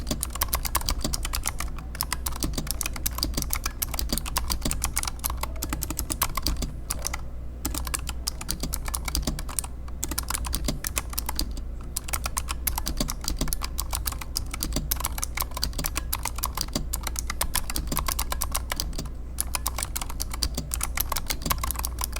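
Razer Huntsman Mini 60% keyboard with Razer purple clicky optical switches and doubleshot PBT keycaps being typed on fast and continuously: a dense stream of key clicks with a few brief pauses.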